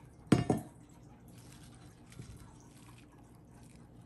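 Two sharp knocks about a quarter second apart, as a stainless mesh strainer is handled over a glass measuring jug. Then faint squishing and dripping as soaked ginger and scallion are pressed in the strainer and the ginger-scallion water drains through.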